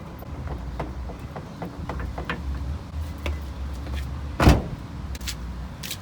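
Nissan 350Z being tested for stiffness on newly fitted front coilovers with the dampers set to full hard: light knocks and clicks over a steady low rumble, and one heavy thump about four and a half seconds in.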